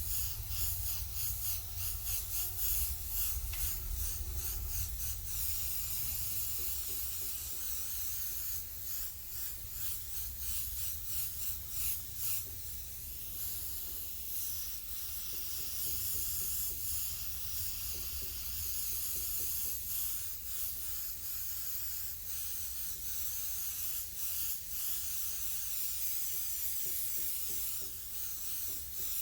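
Compressed-air paint sprayer hissing as it lays down paint, the hiss broken by many short pulses, over a steady low hum.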